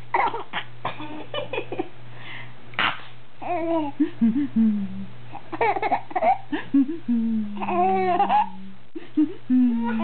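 A baby laughing and babbling: short bursts of giggling in the first few seconds, then longer drawn-out vocal sounds.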